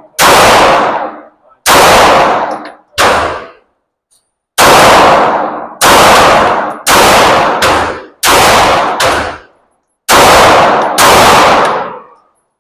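Pistol shots fired one at a time on an indoor range, about eleven in all, roughly a second or so apart. Each shot is loud with a long ringing tail from the room.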